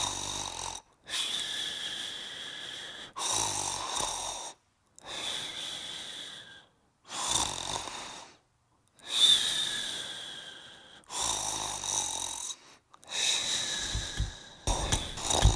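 Cat snoring in its sleep: a slow cycle of a low, rattling snore alternating with a hissy breath that carries a faint whistle, with short silent pauses between breaths. Near the end, a run of irregular low knocks joins in.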